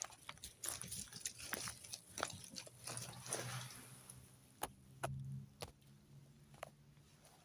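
Irregular crunching and snapping of twigs and forest litter: a dozen or so short sharp cracks, with a longer scuffing rustle about three seconds in.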